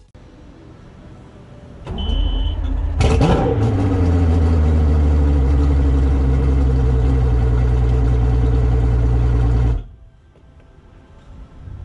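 Mercury Optimax two-stroke outboard starting: a brief high beep, a moment of cranking, then the engine catches with a quick flare and settles into a steady idle. The engine sound stops abruptly near the end.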